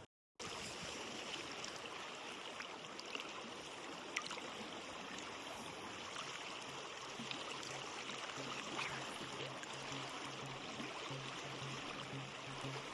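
Steady rushing of river water. About halfway in, faint background music with an evenly pulsing bass note comes in under it.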